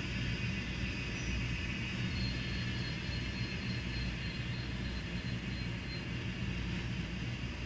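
Steady low rumble with an even hiss over it, unchanging throughout, with no distinct knocks, calls or other separate sounds.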